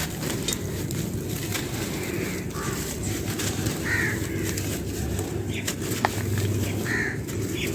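Dry clay crumbling and crunching, heard as scattered sharp crackling clicks over a steady low rumble. Three short bird calls sound in the background.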